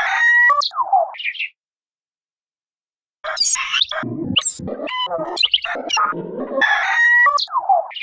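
A remixed, glitched hybrid call stitched together from bird and other animal sounds, a made-up bird call played twice. The first playing ends about a second and a half in; after a silence of nearly two seconds the same call plays again.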